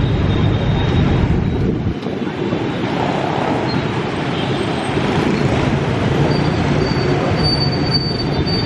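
City street traffic, mostly motorbike engines and tyre noise in a steady din. A deeper rumble in the first two seconds drops away to lighter traffic sound.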